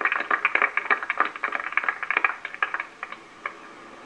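Scattered hand clapping from a small group, fast and uneven, thinning out and stopping about three seconds in.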